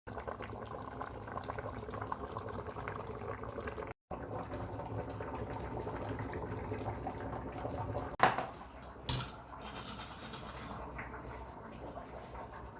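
Liquid pouring steadily. A sharp knock about eight seconds in is the loudest sound, with a smaller knock about a second later.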